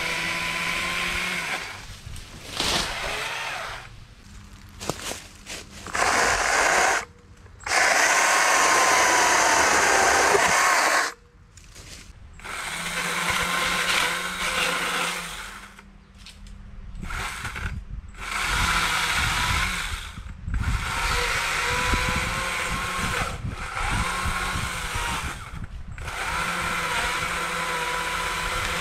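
STIHL MSA 160 C battery-powered chainsaw cutting small trees and brush in repeated bursts of a few seconds each. Its electric motor whine dips in pitch as the chain bites, then recovers, with short quiet gaps between cuts. The longest and loudest cut comes about eight seconds in.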